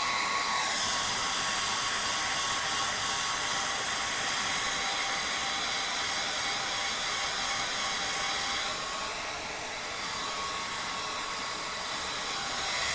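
Handheld electric hair dryer running on its first heat setting: a steady rush of air with a faint whine, dipping slightly for a few seconds about nine seconds in.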